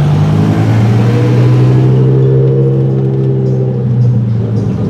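BMW M5 E60's V10 engine with an Eisenmann race exhaust, running at low revs as the car drives past and away: a low, steady exhaust note. Its pitch dips slightly in the first half second, then holds and slowly falls while the higher tones fade.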